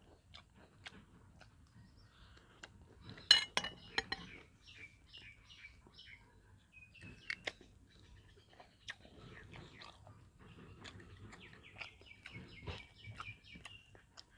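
Small clicks and crackles of fingers picking apart crisp fried rat, with one sharp crack about three seconds in. Birds chirp repeatedly in the background, in two runs of short calls.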